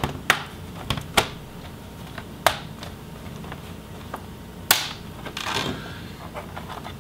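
A handful of sharp plastic clicks and snaps as the bottom case of an Asus TUF FX504 gaming laptop is pried along its seam with a plastic spudger and its retaining clips pop loose, the loudest snap about two-thirds through, followed by a short scraping rustle of plastic.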